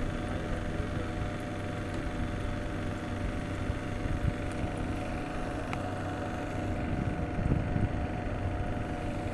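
A boat engine running steadily, an even low hum.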